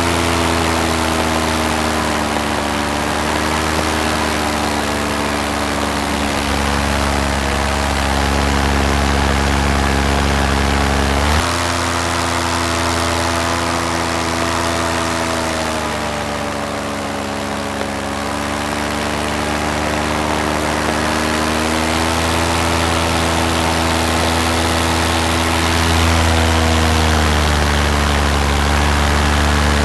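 Paramotor engine and propeller running steadily in flight, the engine speed easing up and down. About eleven seconds in the pitch drops suddenly, sags further a few seconds later, then climbs back.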